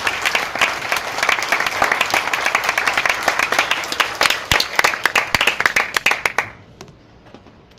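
Audience applauding, a dense mass of clapping that dies away about six and a half seconds in, with a few last scattered claps after.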